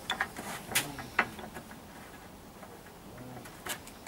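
A few separate sharp clicks and knocks from a manual rail tile cutter being worked on porcelain tile. The two loudest come about three-quarters of a second and just over a second in, with a lighter one near the end.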